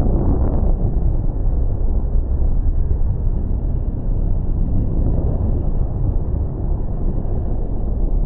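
Deep, steady rumble of aircraft engines, with no clear tone in it.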